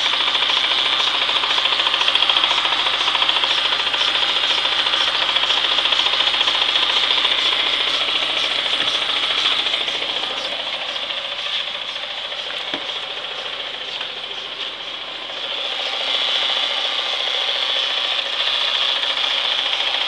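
Renault Clio's clutch and gearbox area making a steady rasping, whirring mechanical noise with the engine running and the clutch pedal released. The noise softens for a few seconds past the middle and then comes back. It is the kind of noise that stops when the clutch pedal is pressed and grows with speed, which the owner suspects is a gearbox or clutch fault.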